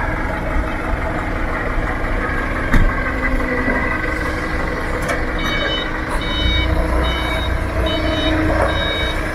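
Heavy vehicle engine running with a steady rumble and a single knock about three seconds in; a little past halfway a reversing alarm starts beeping steadily as the engine note grows heavier, the sound of a truck or forklift backing up.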